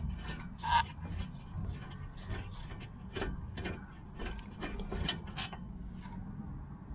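Irregular metallic clicks and clinks from hand-tool work on a car's brake caliper bolts, with the loudest click about a second in.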